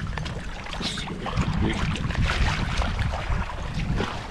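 Wind buffeting the microphone with water sloshing and splashing close by, a steady rough rumble broken by short splashy crackles.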